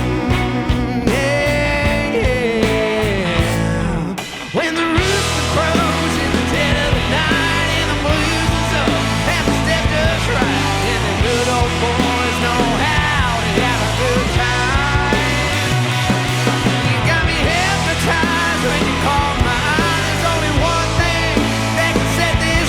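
Rock band playing live: electric guitar, bass guitar and drums. About four seconds in the music briefly drops away, then the full band comes back in.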